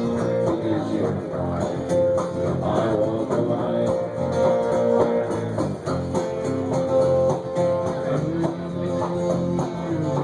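Live country music on strummed acoustic guitar, a steady beat carrying on with no lyrics transcribed, as in an instrumental break.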